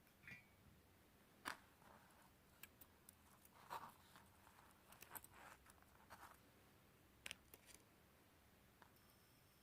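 Faint scattered scratches and small clicks, as of small tools or phone parts being handled on a work surface, with a slightly louder scrape about one and a half seconds in and another near four seconds.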